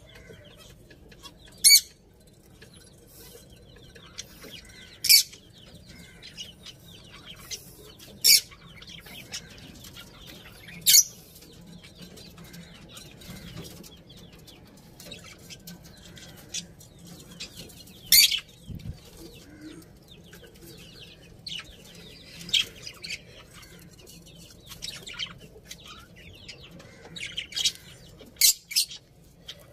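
Budgerigars chirping: loud, sharp, high chirps every few seconds over a continuous soft twittering chatter.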